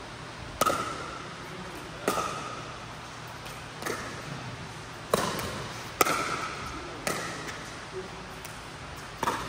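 Pickleball rally: paddles striking a plastic pickleball back and forth, with the ball bouncing on the hard court, about seven sharp pocks at uneven gaps of one to two seconds. Each hit echoes in the indoor court hall.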